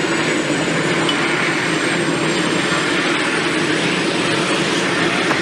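Eurocopter AS365 Dauphin twin-turboshaft helicopter running steadily, a dense rushing engine and rotor noise with a faint high-pitched turbine whine on top.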